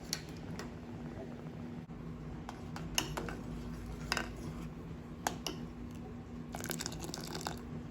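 Scattered light clinks and taps of kitchen utensils against a pot, with a brief flurry of them near the end, over a steady low hum.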